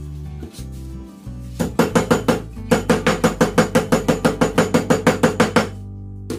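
A rapid run of sharp, evenly spaced knocks, about five or six a second, starting about one and a half seconds in and stopping about a second and a half before the end, over background music.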